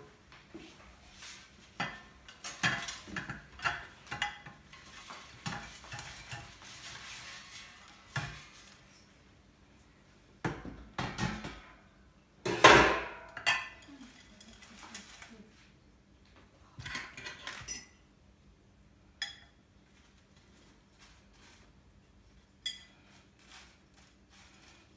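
Irregular kitchen clatter of dishes and utensils, with scattered knocks, clinks and scrapes and a brief rustling stretch. The loudest knock comes about halfway through.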